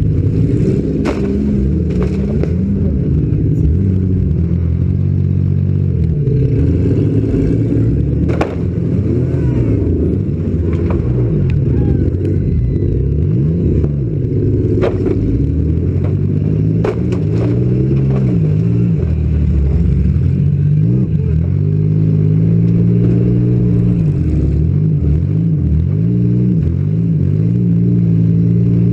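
Demolition derby car's engine revving up and down under hard driving, heard from on board the car. Several sharp bangs and clatter from the battered car break through the engine noise.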